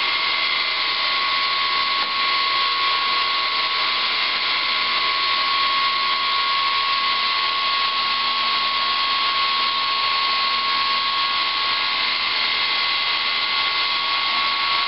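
Brushless electric motor of a ParkZone Super Decathlon RC plane spinning a Master Airscrew 8x6 three-blade propeller at steady part throttle: an even, high whine with rushing air from the prop. It runs smoothly under the load of the larger three-blade prop.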